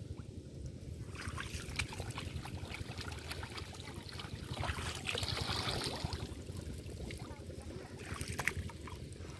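Water splashing and trickling as a bamboo darki fish trap is lifted out of shallow water among water plants. A louder rush of water about five to six seconds in, with scattered small clicks and a low rumble underneath.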